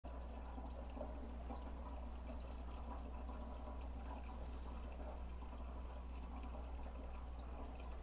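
Water circulating through a compost water heater's tank and hoses: a faint, even trickle with small drips, over a steady low hum.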